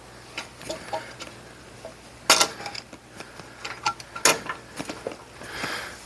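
Metal hand tools and parts being handled: a run of light clinks and clicks, with two sharper metal clanks about two and four seconds in and a short scraping rustle near the end.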